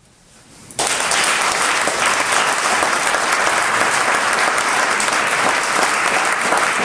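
Audience applauding, breaking out suddenly just under a second in after a brief hush and going on steadily.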